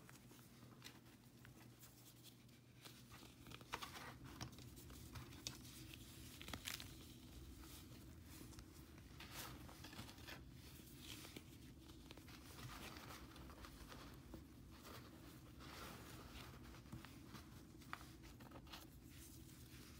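Hands crumbling and sifting chunks of dried paste in a metal tray: faint gritty crunching and rustling, with scattered small sharp cracks as lumps break.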